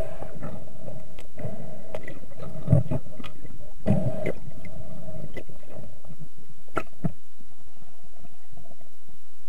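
Water moving and bubbling, heard underwater through a camera housing as a muffled low rumble, with a few dull knocks and a couple of sharp clicks about seven seconds in.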